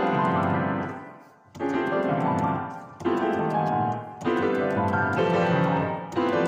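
Grand piano played with dense two-handed chords in short phrases. The sound dies away almost to nothing about a second in, then several new phrases follow.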